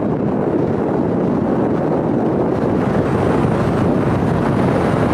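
Loud, steady wind rush buffeting the microphone, with the noise of a moving car.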